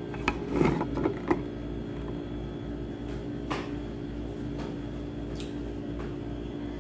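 Handling knocks and rattles as a phone camera is set down and steadied, followed by a few light clicks and footsteps, over a steady electrical hum.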